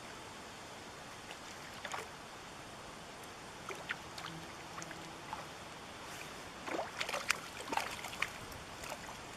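Steady rush of a small brook, with a hooked sea trout splashing at the surface several times as it fights, most busily about seven to eight seconds in.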